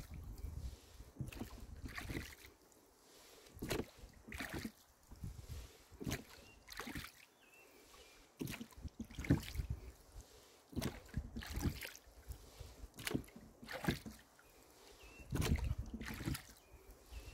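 Rowboat being rowed: the oars knock sharply in their oarlocks and the blades splash, in clusters of strokes about every two seconds. A low rumble of wind on the lavalier microphone comes and goes.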